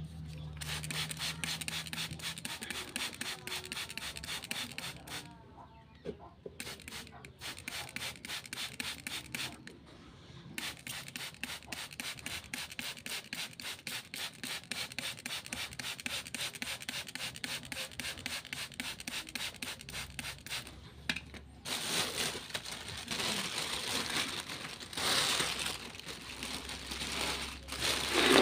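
Hand trigger spray bottle misting cuttings, squeezed over and over in quick succession with a spritz of water on each pull, pausing briefly twice. From about 22 seconds in, a thin plastic bag rustles and crinkles as it is handled over the pot.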